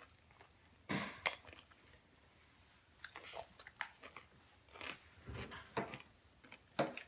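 Someone chewing food close to the microphone: a scattering of short, irregular crunchy mouth sounds.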